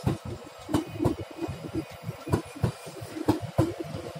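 Howrah–Yeshvantapur Duronto Express LHB passenger coaches running past at speed. The wheels clack over the rail joints in regular close pairs over a steady rumble.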